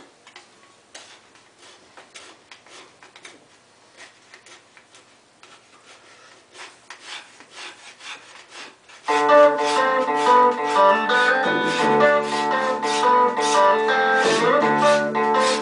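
Quick, irregular rubbing strokes of a hand tool on the wooden spokes of an old buggy wheel being refinished. About nine seconds in, louder guitar music starts and carries on.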